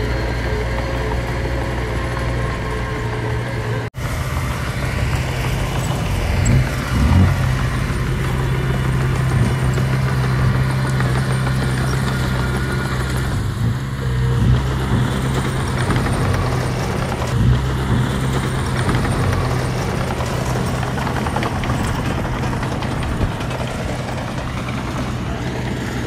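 Diesel engine of earthmoving machinery running steadily, with a few short louder surges and a brief cut-out about four seconds in.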